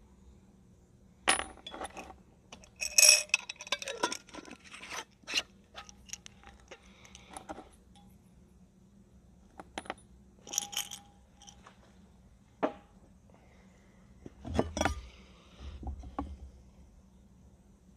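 Steel nails clinking together in a hand and tapping on a wooden board: scattered bursts of light metallic clicks, with a heavier knock near the end.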